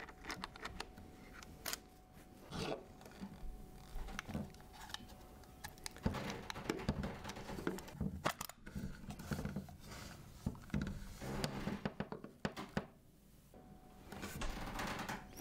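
Scattered small metal clicks and scrapes of a Zorki-C rangefinder camera being handled: turned over on a table, with its bottom plate unlocked and lifted off.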